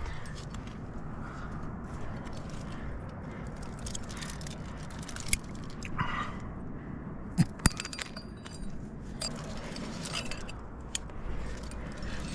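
Trad climbing rack of cams and carabiners clinking and jangling on the harness as the climber moves up the crack, with scattered sharp metal clicks, the loudest a pair close together a little past the middle.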